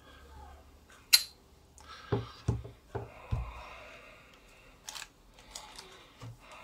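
A heavy steel-cased neodymium fishing magnet being handled: a sharp metallic click about a second in, then four heavy knocks as the magnet is set down and stood on the table, and a few light clicks later.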